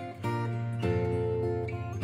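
Background music: acoustic guitar playing chords.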